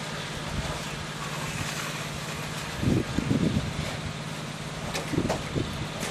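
Steady low engine hum with outdoor background noise. A cluster of brief, louder low thuds comes about three seconds in, and a few more around five seconds.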